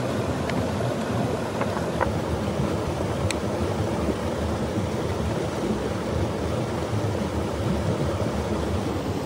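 Steady, even rush of a fast-flowing mountain river, with a few faint light clicks in the first few seconds.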